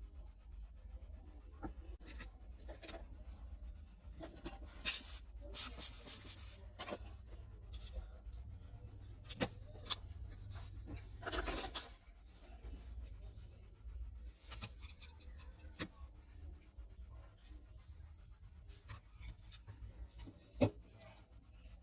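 Small repair tools scraping and rubbing on a phone, with scattered light clicks. Two louder bursts of hiss come about five seconds in and about eleven seconds in.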